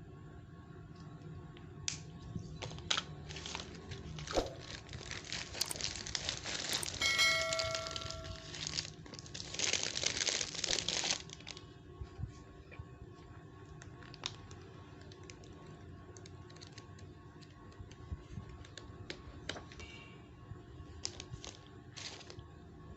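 A package being opened by hand: wrapping crinkling and tearing, with scattered clicks and rustles. There is a long stretch of dense tearing and crinkling between about four and eleven seconds in, with a brief high tone in the middle of it.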